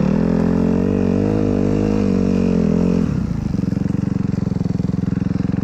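Custom snow bike's dirt-bike engine running with the throttle held and its pitch wavering slightly. About three seconds in, the revs drop to a low, fast, even chugging.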